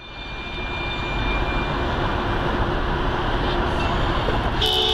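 Steady road and engine noise of a car driving at highway speed, heard from inside through a dashcam, swelling in over the first second. Right at the end a car horn starts to sound.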